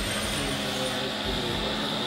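Steady vehicle drone from a radio-controlled scale tipper truck driving up a gravel ramp with a trailer, with voices murmuring underneath.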